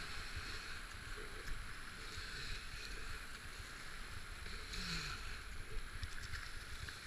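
Rushing, churning whitewater around a kayak running a river rapid, a steady noise without distinct events.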